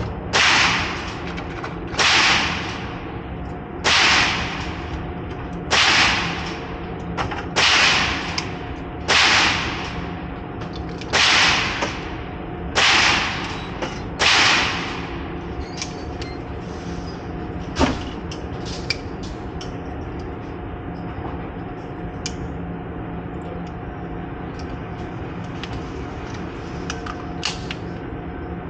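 About nine pistol shots fired at a slow, steady pace, one every one and a half to two seconds, each ringing off in an indoor range. They stop about halfway through, leaving a steady background hum and a few faint clicks.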